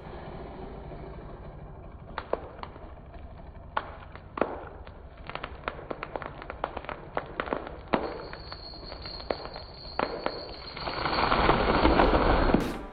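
Wood of a large dead tree's hinge cracking and popping in a string of sharp snaps as the tree tips over. Near the end it builds to a loud crashing rush as the tree comes down.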